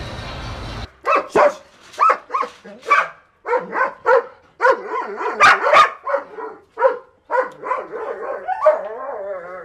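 A dog barking rapidly, two to three barks a second, ending in a longer, wavering whining call near the end.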